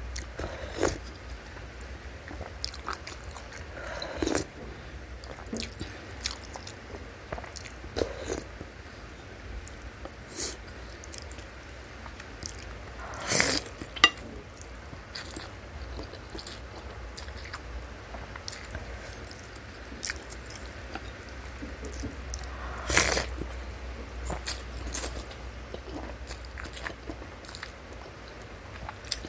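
Close-miked eating of meatball soup with noodles: wet chewing and mouth sounds, with a long, loud slurp of corn vermicelli about 13 seconds in and another loud slurp around 23 seconds.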